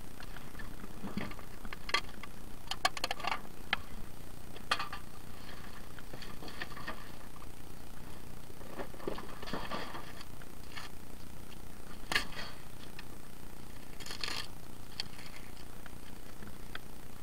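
Loose objects being handled and rummaged through: scattered clinks, rattles and light clatters, with the louder knocks about two to three seconds in, near the middle, and twice in the last third.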